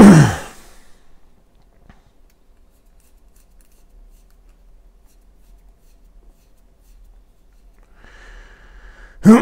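Faint small clicks and rubbing of fingertips turning the pulled-out crown of a Lobinni Interlaken watch to set the hands.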